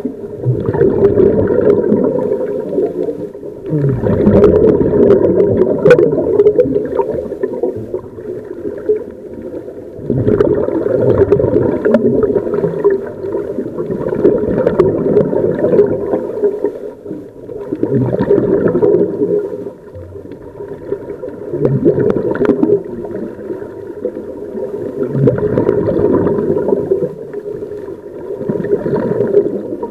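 Scuba divers' exhaled air bubbling from their regulators, heard underwater through the camera: a gurgling rush of bubbles that swells every three to four seconds with each breath out.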